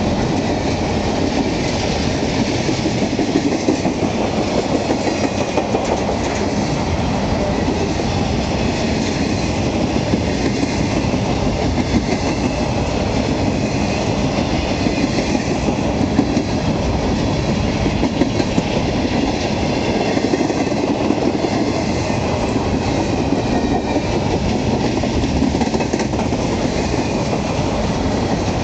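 Freight train of empty intermodal well cars rolling past: a steady rumble of steel wheels on rail with clickety-clack over the rail joints.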